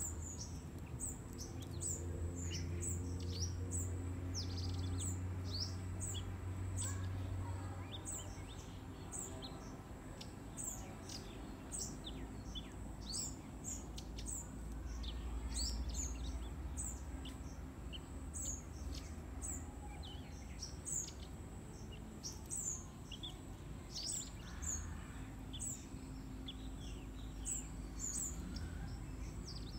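Small songbirds chirping: a running string of short, high, downward-sliding chirps, about one or two a second, over a low steady background rumble.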